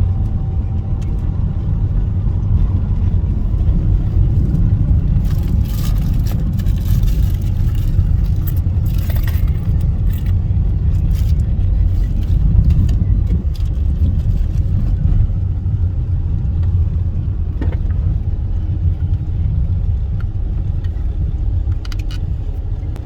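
Car driving, heard from inside the cabin: a steady low road and engine rumble, with a spell of clicks and rattles between about 5 and 10 seconds in.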